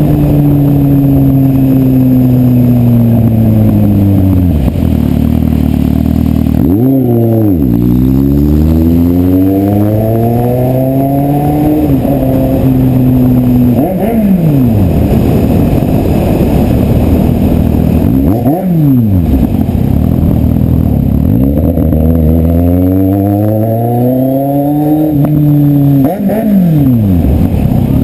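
Kawasaki Z750 motorcycle engine being revved. The revs sink back over the first few seconds, then come four quick throttle blips and two slower climbs in revs that each fall away sharply.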